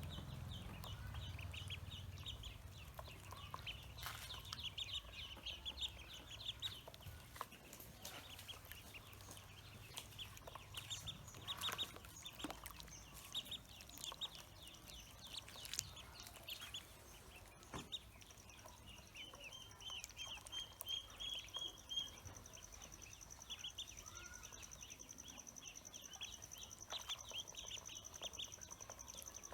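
Pekin ducklings peeping in rapid runs of short, high-pitched chirps, with a few sharp clicks in between.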